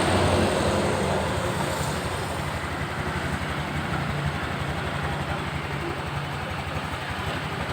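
Honda Beat scooter's single-cylinder engine idling steadily. At idle it sounds normal, without the jingling rattle it was brought in for, which shows only when the throttle is opened.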